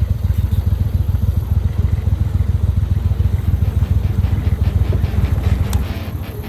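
Boat motor running steadily with a fast, low throb, easing off slightly near the end.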